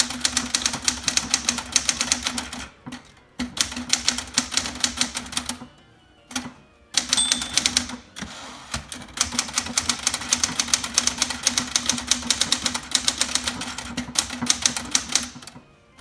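1973 Smith Corona Sterling manual portable typewriter being typed on in fast runs of keystrokes, type bars clacking against the platen, with a few short pauses. Its end-of-line bell dings once about seven seconds in.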